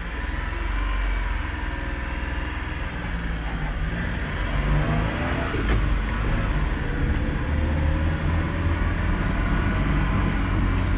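A 1994 Suzuki mini-truck's small three-cylinder engine, heard from inside the cab as the truck pulls away. The engine note climbs and gets louder about four seconds in as it accelerates.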